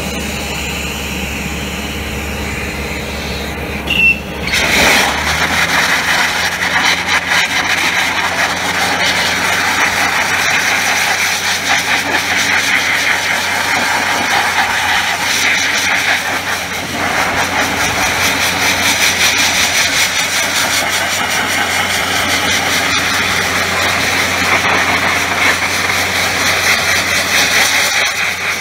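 A steady low machine hum, then about four seconds in a DB500 Dustless Blaster nozzle opens with a sudden blast. It keeps up a loud, steady hiss of compressed air, water and 40/70 crushed glass stripping paint from a steel car guard.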